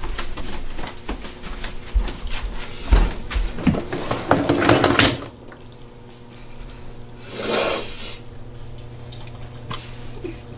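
Light clicks, knocks and rattles of an open dishwasher's wire racks as a cat clambers and noses about in them, busiest in the first half. A short rushing noise a little past halfway, over a faint steady hum.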